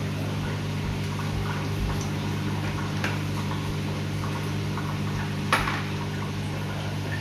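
Soft wet squishing and small clicks from gloved hands working at a whelping poodle on absorbent pads, with one sharper click about five and a half seconds in. A steady low hum runs underneath.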